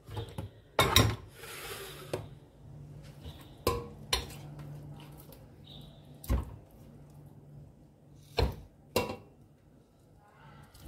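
Raw meat pieces being put into a stainless steel pot, with a handful of irregular sharp knocks and clatters against the pot.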